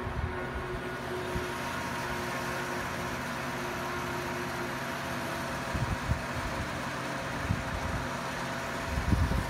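A steady machine hum holding several fixed pitches, with low rumbling bumps on the microphone a few times, loudest near the end.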